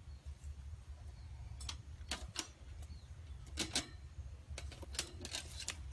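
A run of irregular sharp clicks and light rattles, bunched about two seconds in, in the middle and near the end, over a steady low rumble.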